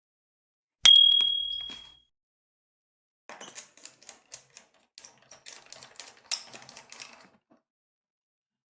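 One sharp metallic strike with a high, ringing ding about a second in, then a few seconds of light, irregular clicks as a small screwdriver drives the screws of a laptop cooling fan.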